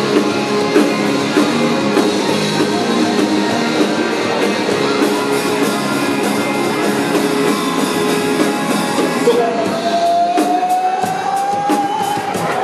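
Rock band playing an instrumental passage with drums and guitar; near the end a single long held note rises slowly in pitch.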